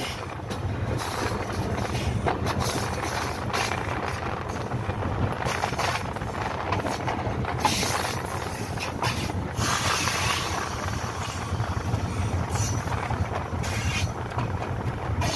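Diesel locomotive running under a steady low rumble as the train rolls into a station, with scattered knocks and clatter from the wheels and running gear.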